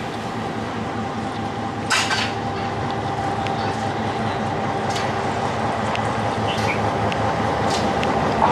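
Sri Lanka Railways Class M6 diesel locomotive running slowly toward the listener, its engine drone and a steady whine growing gradually louder as it approaches. A sharp metallic clink about two seconds in, and a few fainter clicks from the running gear later.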